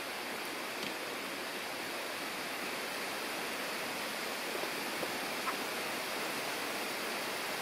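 Steady outdoor rushing noise, even and unbroken, with a faint short tick about five and a half seconds in.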